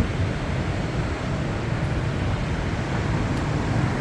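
Steady road traffic noise from a busy city street, an even rumble of passing vehicles without distinct events.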